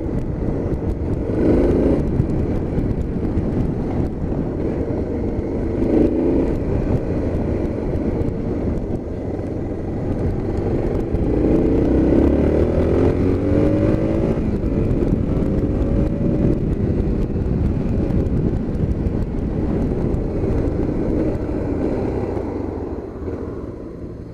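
Motorcycle engine accelerating through the gears, its pitch rising in several runs, under steady wind rumble on the microphone. It eases off near the end as the bike slows.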